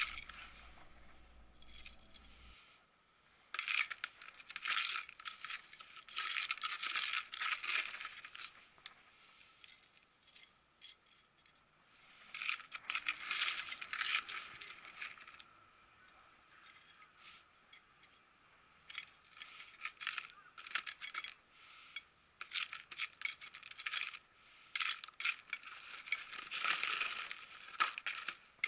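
Small metal hand trowel scooping and scraping gritty potting soil in a plastic planter, the grains and pebbles clicking and sliding against the metal and plastic in repeated bursts with short pauses between.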